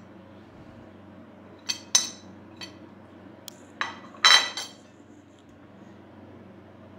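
Kitchenware clinking: a handful of sharp, ringing clinks and knocks, the loudest cluster about four seconds in, over a faint steady low hum.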